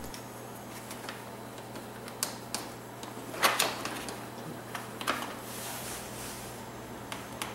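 Plastic clicks and knocks from a BMW R1200GS beak fairing panel being pushed and worked into place on its mounts: a handful of scattered sharp clicks, the loudest about three and a half seconds in, with a short rustle around six seconds.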